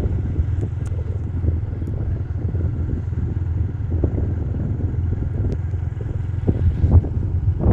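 Motorcycle riding along a road, its engine a steady low drone mixed with road and wind noise, with a few small knocks from bumps.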